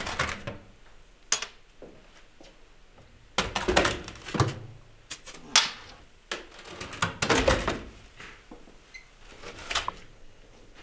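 Handling of steel liquid-nitrogen storage tanks: irregular knocks, clunks and clatter as an insulated lid is lifted off and the fittings and contents are moved about.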